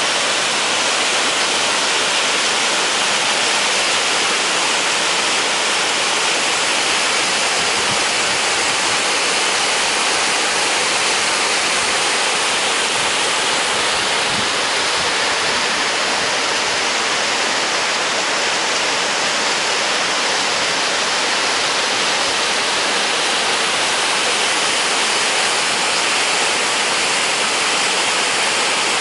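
Senjin Falls, a tall waterfall, pouring steadily: a constant, even rush of falling water, mostly in the upper register, with no change throughout.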